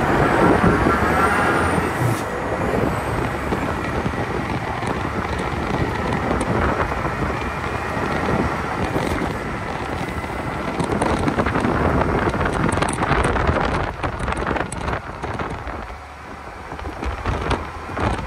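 Scania road train driving at speed: steady engine rumble mixed with tyre and wind noise, heard from beside the cab, easing briefly near the end.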